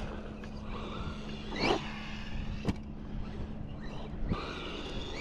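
Losi Lasernut 4S brushless RC rock racer driving off across grass, its motor giving a rising whine about halfway through as it speeds up. There is a sharp click just after, over steady wind noise on the microphone.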